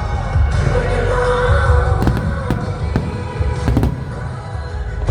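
Fireworks bursting overhead, about five sharp bangs between two and four seconds in, over a steady low rumble and music playing.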